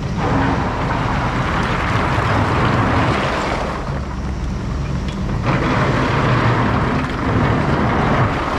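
Takeuchi excavator's diesel engine running steadily as the machine works, with a strong, even hiss over it.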